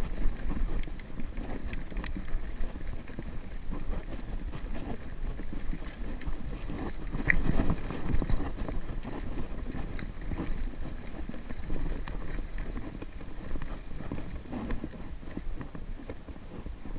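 Mountain bike riding down a rocky dirt singletrack: wind rumbling on the camera microphone, tyres rolling over gravel and the bike rattling over rocks and bumps, loudest over a rough patch about seven to eight seconds in.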